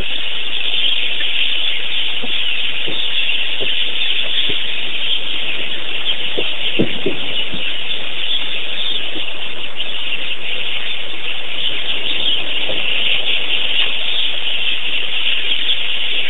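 Steady, loud, high-pitched hiss with a few faint soft knocks.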